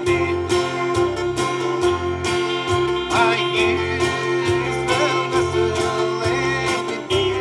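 Live country-gospel band music: an acoustic guitar strummed over a steady bass line and a drum beat.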